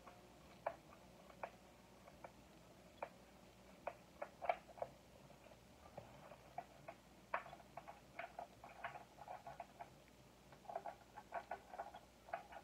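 Faint, irregular small clicks and taps from hands working the controls of a Senix 46cc four-stroke chainsaw while readying it for a cold start; the engine is not running. The clicks come more often in the second half.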